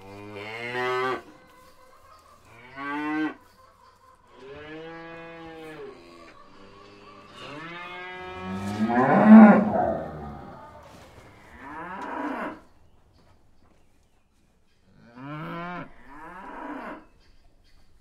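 Cows mooing: about eight long, separate calls with pauses between them, the loudest about nine seconds in.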